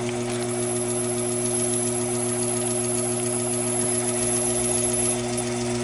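Taig mini lathe running steadily with a steady hum while a drill bit held in the tailstock's drill chuck bores into a spinning brass piece, the cut going smoothly.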